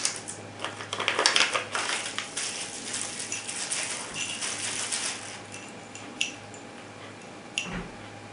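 Plastic bag and bubble wrap crinkling as hands unwrap a pair of aluminum pistol grips, dense crackling for about five seconds, then quieter handling with two sharp clicks near the end.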